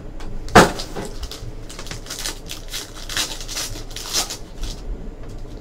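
Foil trading-card pack wrappers crinkling and crackling as Panini Spectra football packs are opened by hand and the wrappers crumpled: an irregular run of rustles with one sharp, loud crackle about half a second in.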